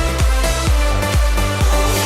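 Background music: an electronic dance track with a steady kick-drum beat of about two beats a second under sustained synth chords, with no singing.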